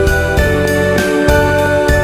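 Background music: sustained keyboard-like notes changing about every half second over a steady bass line.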